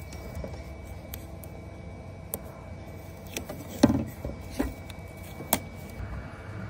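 A few scattered clicks and knocks, the loudest about four seconds in, over a steady low hum.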